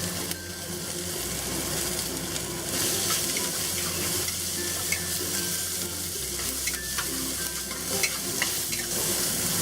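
Diced onion and bell pepper sizzling in hot oil in a pan over medium-high heat, with steady frying hiss and scattered light taps and scrapes as they are stirred.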